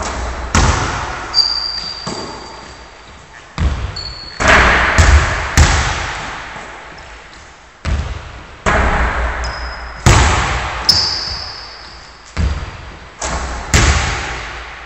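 Basketballs bouncing and thudding on a wooden gym floor, about a dozen irregular impacts, each one ringing on in the hall's echo, with a few short high sneaker squeaks in between.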